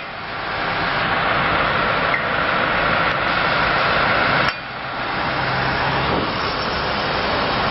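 Heavy recovery truck's diesel engine running steadily, mixed with street noise. The sound drops abruptly about four and a half seconds in, then builds back up.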